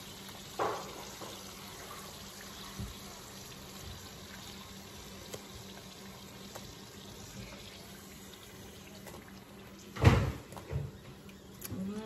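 Steady faint rushing noise, with a single loud knock about ten seconds in followed by a couple of lighter knocks, like dishes being handled.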